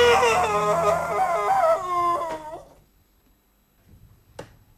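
A long, wavering, dog-like howl that breaks off about two and a half seconds in, followed by near quiet and a faint click.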